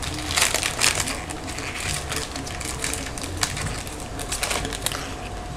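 Foil wrapper of a trading-card pack crinkling and tearing as it is opened, in a run of quick irregular crackles that die down about five seconds in.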